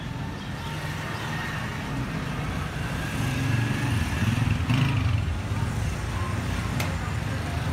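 Steady low rumble of motor-vehicle engines, like road traffic running outside, swelling a little in the middle, with one sharp click about seven seconds in.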